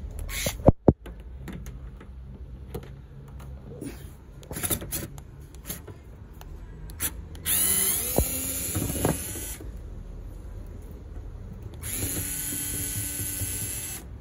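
Cordless drill-driver with a Phillips bit running twice, each for about two seconds, as it backs out car bumper screws. Sharp knocks and clicks from handling the tool and parts come before.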